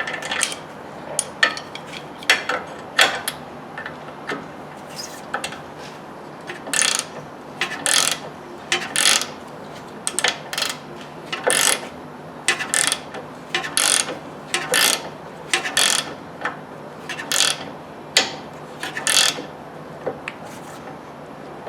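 Hand ratchet wrench being worked back and forth on a suspension bolt, a burst of ratchet clicks on each return stroke about once a second, stopping a couple of seconds before the end.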